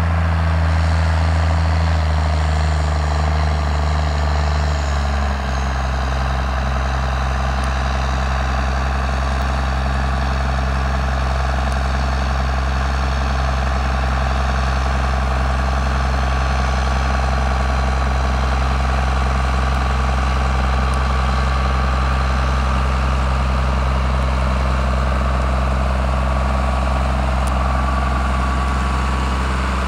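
Case MX110 tractor's six-cylinder diesel engine running steadily while pulling a slurry umbilical hose across a field, its note dropping slightly about five seconds in.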